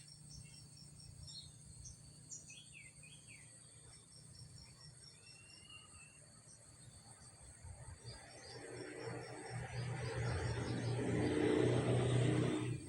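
Outdoor ambience of an insect chirping steadily, about four times a second, and a few short bird chirps over a low hum. From about eight seconds in, a rushing noise swells and stops abruptly near the end.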